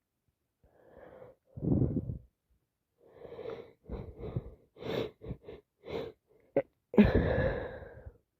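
A person with a head cold sniffling and taking a run of short catching breaths, with a louder burst about two seconds in, then a loud sneeze near the end.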